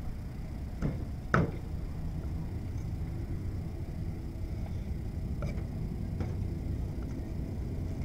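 Meat cleaver chopping down onto a wooden cutting board: two sharp chops about a second in, the second the louder, then a few lighter taps later on, over a low steady rumble.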